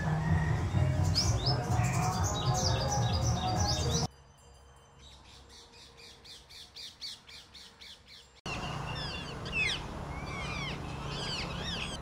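Birdsong montage in three cuts. First, short high bird calls over background music. Then, after an abrupt drop, a faint, fast, even high ticking trill. About eight seconds in, rose-ringed parakeets start squawking, with repeated shrill falling calls.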